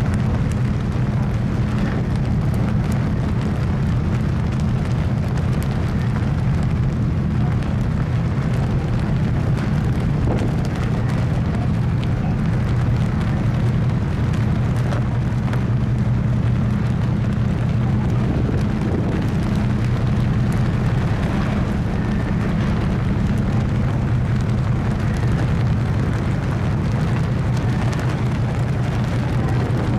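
Steady low droning rumble of a car ferry's engines, heard on board while the ship is underway.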